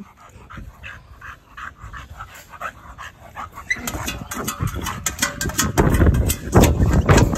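A dog making short yips and whines, with louder, denser scuffling noise building from about halfway through.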